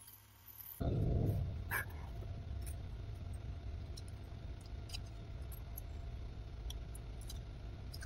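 A low steady rumble that starts with a thump about a second in, with scattered light clicks of small metal knife parts and a screwdriver being handled during pocket-knife assembly.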